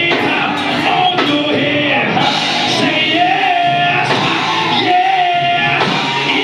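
Live gospel church music with a voice singing long, bending held notes over the band.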